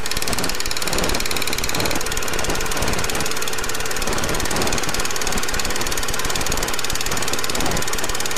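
Loud, harsh, static-like noise with a fast, even rattling pulse and no clear pitch: the distorted sound effect of a video's title intro.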